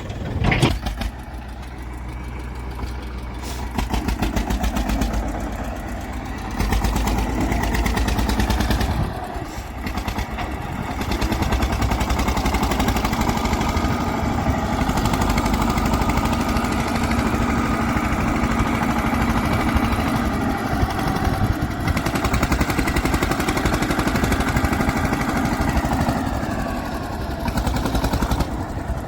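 Heavy diesel engine of a farm tractor or backhoe loader running under varying load, its sound stepping louder and softer several times, then steady for most of the second half.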